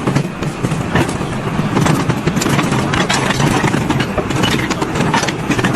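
A machine engine running loudly and steadily, with many short knocks and clatters.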